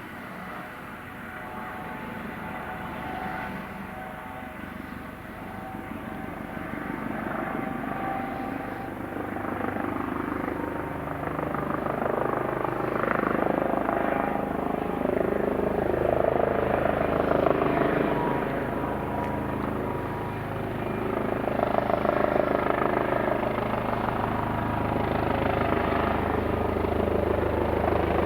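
Eurocopter AS365 Dauphin rescue helicopter running, a steady whine over the rotor noise, growing steadily louder as it comes closer.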